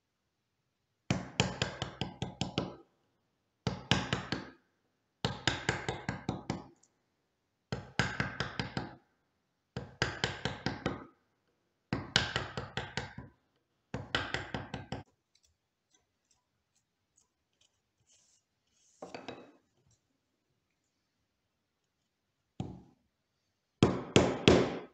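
Wooden mallet striking a bench chisel to chop out a hand-cut wood joint: runs of rapid light blows, each run lasting about a second, repeated seven times with short pauses. After a quiet stretch come a few shorter runs, the last near the end.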